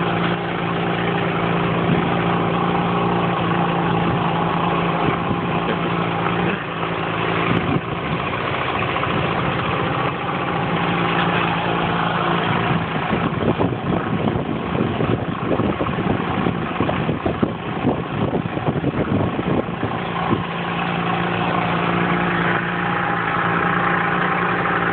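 A 25 hp outboard motor running steadily, driving a small launch along. From about 13 to 20 seconds in the even engine note turns rougher and more uneven, then steadies again.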